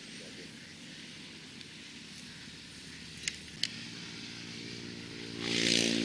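A small engine running, growing louder toward the end, with two sharp clicks a little past halfway.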